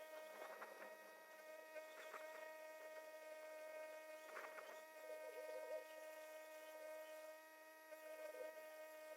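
Near silence with a faint steady electrical hum, with a few faint rustles.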